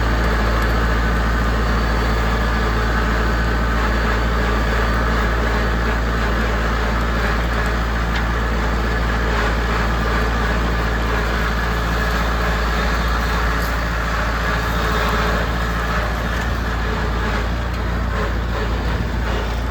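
Farm tractor engine running steadily under load while pulling a no-till drill through tall cover crop, with a constant low drone and dense mechanical noise.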